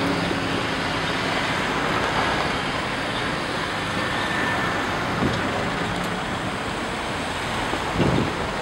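Steady road traffic and vehicle engine noise, with a couple of dull knocks near the end.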